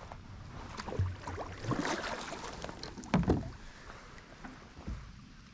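Handling noises in a fishing kayak: several knocks and bumps against the hull, the loudest a pair about three seconds in.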